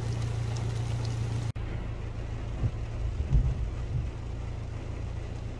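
Rain falling on acacia trees and grass, over a steady low rumble. The sound cuts out for an instant about a second and a half in, after which the hiss is duller, with a few low bumps a second or two later.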